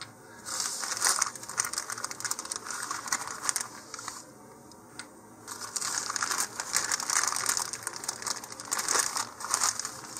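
Clear plastic parts bag crinkling as it is handled and cardboard tube fins are taken out of it. It comes in two stretches with a short lull about four seconds in.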